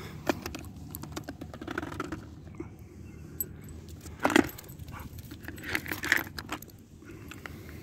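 Metal lead clip and tag jangling on a dog's collar, with claws clicking and scraping on stone as the dog gets up and trots off.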